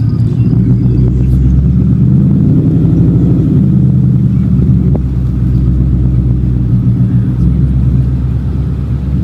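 Car engine rumbling steadily while driving, with small shifts in pitch as the speed changes.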